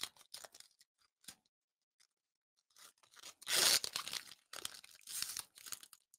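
Foil wrapper of a Pokémon TCG booster pack being torn open by hand: a few faint ticks of handling, then a loud rip about three and a half seconds in, followed by crinkling of the torn foil.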